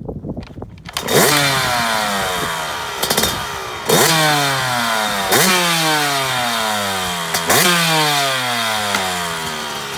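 Yamaha YZ125 two-stroke dirt bike engine catching about a second in, after a few faint clicks. It is then revved in sharp throttle blips, several times, each falling back toward idle.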